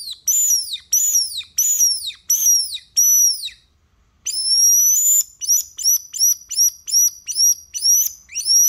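A handmade pipe whistle used as a bird call, blown in a bird-like pattern. First comes a run of short, very high whistles that each fall in pitch, about two a second. After a pause of about a second there is a longer held note, then a quicker run of falling notes, about three a second.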